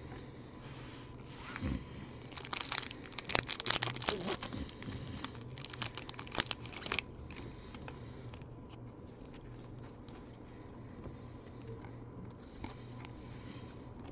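Baseball card pack wrapper being torn open and crinkled, a run of crackling for a few seconds in the first half, then quieter rustling as the cards are handled.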